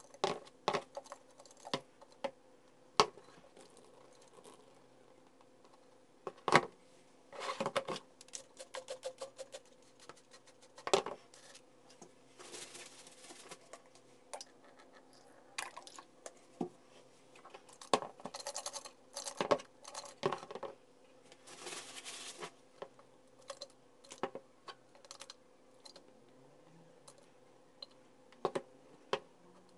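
A car's plastic coolant reservoir being scrubbed and turned by hand in a plastic basin: irregular scraping and rubbing with sharp plastic-on-plastic knocks and clicks.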